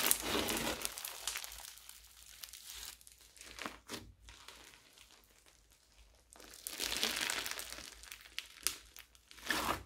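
Floam, slime packed with small foam beads, crackling and crunching as hands squeeze and knead it. A loud bout opens, a quieter stretch follows, then a second loud bout about two-thirds of the way through and a short one near the end.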